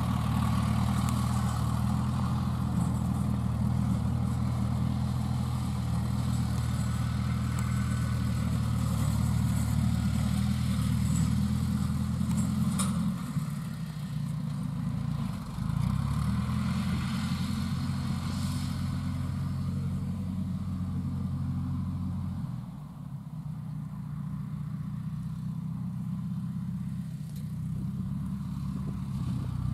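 Engine of a homemade crawler-track rotary tiller running steadily as it tills dry rice-stubble ground. Its note steps lower about 13 seconds in and again about 22 seconds in.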